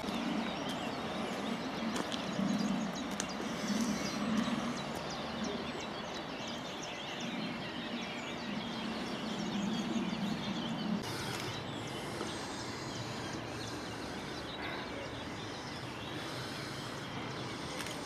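Songbirds chirping steadily, over a low hum that swells and fades and stops abruptly about eleven seconds in.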